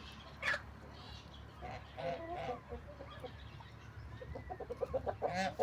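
Farmyard poultry calling, with scattered short clucks and calls. A quick run of honks starts about four and a half seconds in and grows louder toward the end.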